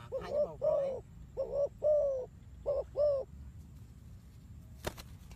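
Spotted dove cooing: seven short coos in three phrases of three, two and two notes, ending about three seconds in. A single sharp click comes near the end.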